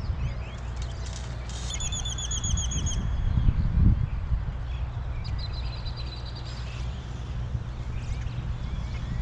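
Birds singing: a fast run of repeated high whistled notes about one and a half seconds in, and a shorter run of repeated notes past the middle, over a steady low rumble.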